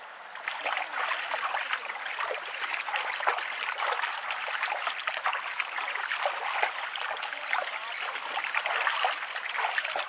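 Lake water lapping and splashing: a steady wash of many small, quick splashes.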